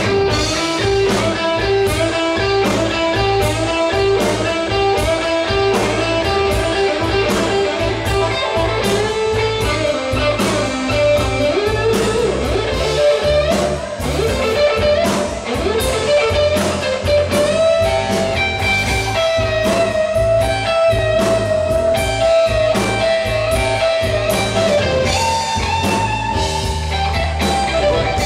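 Live rock band playing an instrumental break: an electric guitar lead with bent and long held notes over bass guitar and drums.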